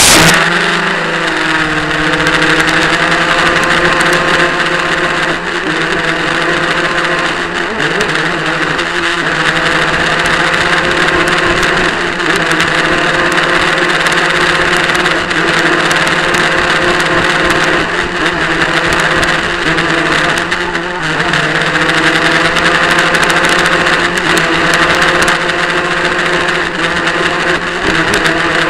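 RC model powerboat's motor running at speed, heard close up from a camera on the hull, a steady drone with water rushing past. It comes on suddenly at the start, and its pitch dips briefly a few times.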